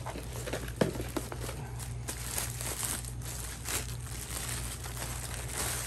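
Clear plastic bag crinkling and rustling as a speaker is pulled out of it and unwrapped, with one sharp knock just under a second in.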